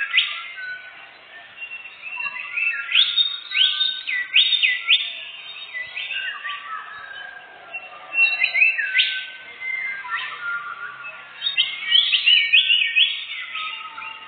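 A songbird singing, in several bursts of quick whistled notes that sweep up and down, with quieter gaps between the bursts.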